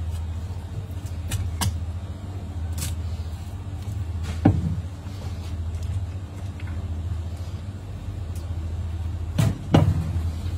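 Steady low machine hum with scattered knocks and clicks from a knife and fish being handled on a plastic cutting board. There is one sharper knock about halfway through and a louder double knock near the end, around when the deba knife is laid down on the board.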